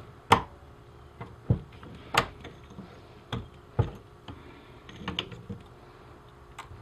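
Sharp metal clicks and clinks, about eight of them spaced irregularly, as a screwdriver pries the old trigger wires off the steel frame of a Belisle 280 conibear trap.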